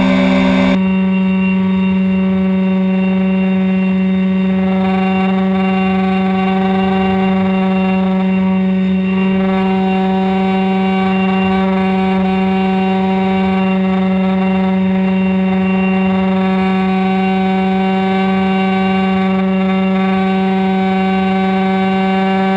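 Motor and propeller of a radio-controlled model airplane, heard from the onboard camera: a steady droning hum that drops to a lower pitch just under a second in, then holds one pitch.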